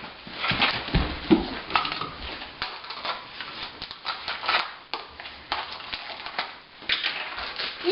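Cake mix being poured into a bowl and handled: irregular rustling and scraping with many light clicks.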